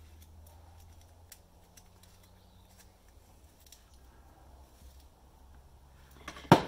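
Faint small clicks of a 12 V cigarette-lighter plug's metal tip being screwed back onto its plastic body by hand, over a low hum. Near the end comes one sharp plastic knock as the plug is put into the cooler's plastic storage compartment.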